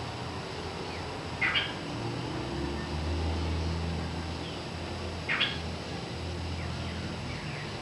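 Cockatiel giving two short chirps about four seconds apart, over a low background rumble.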